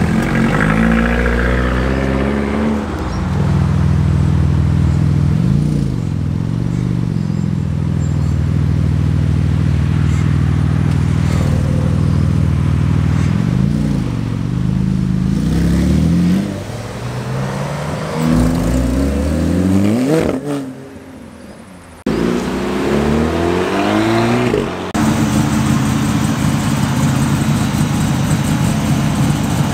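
Car engines pulling away one after another, each revving up briefly, with about six short revs: a Fiat Abarth hatchback near the start and a Porsche 911 GT2 RS's twin-turbo flat-six in the middle. Near the end a first-generation Chevrolet Camaro SS's V8 runs at a steady low idle.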